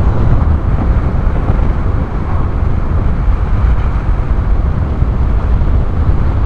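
Steady, loud low rumble of wind buffeting a camera microphone fitted with a furry windshield, mixed with a motorcycle's engine and road noise while riding along.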